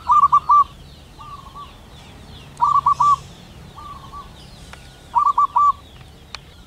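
Male zebra dove singing its cooing song, a male calling a female. There are three loud phrases about two and a half seconds apart, each a quick run of a few notes, with fainter phrases from another dove in between. Faint high chirping runs underneath.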